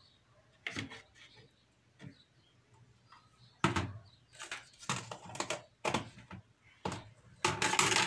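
Spoon scraping and tapping margarine off into a plastic blender jug, then from about three and a half seconds in a denser run of sharp knocks and clatters as kitchen containers and utensils are handled and set down.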